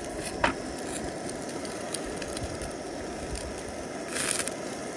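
Horumon (grilled offal) sizzling and crackling steadily on a wire grill net over a tabletop gas grill. A sharp click about half a second in and a brief hissing burst near four seconds.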